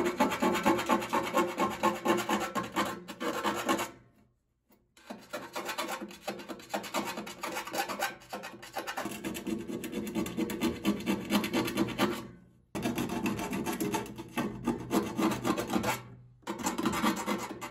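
Hand file rasping back and forth around the edge of a freshly cut hole-saw hole in sheet metal, in rapid strokes with a few brief pauses. The file is deburring the sharp cut edge so it won't chafe the hose passing through it.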